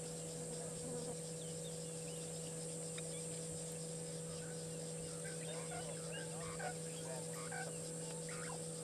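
Scattered wild bird calls, growing busier from about five seconds in, over a steady electrical hum and a high, even insect drone.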